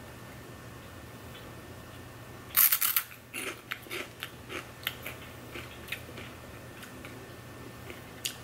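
A dried crispy okra snack bitten with a loud crunch about two and a half seconds in, then chewed with a run of smaller crunches that die away over the next few seconds.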